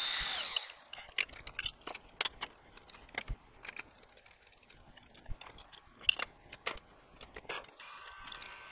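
Sharp metallic clicks and clinks as a drill chuck is taken out of a milling machine spindle and a collet with an end mill is fitted. A high whine dies away in the first half second, and a faint steady hum comes in near the end.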